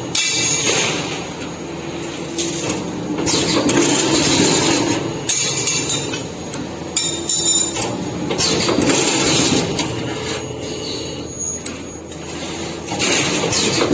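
2D CNC wire bending machine working through its bending cycle: short spells of high motor whine and hiss that start and stop every second or two, with sharp clicks and knocks in between.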